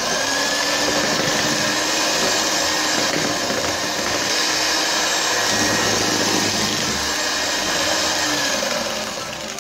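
Electric hand mixer running steadily, its twin beaters churning butter and powdered sugar in a plastic bowl, with a constant motor whine; near the end it slows and drops in pitch as it is switched off.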